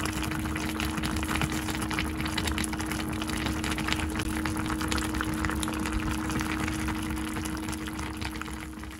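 Braised chicken stew bubbling and crackling as it simmers in a cast-iron pot, over a steady low hum. It fades out near the end.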